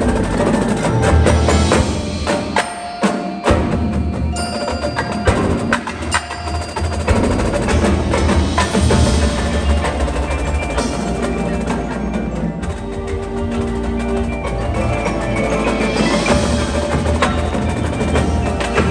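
Indoor percussion ensemble playing live: marching snare, tenor and bass drums with a front ensemble of marimbas and other mallet keyboards. The low end drops out briefly about three seconds in.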